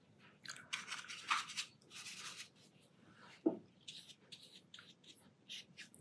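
Watercolour brush scrubbing and swishing paint in a plastic palette, a few rubbing strokes over the first couple of seconds, with a soft knock about three and a half seconds in, then shorter, lighter brush strokes.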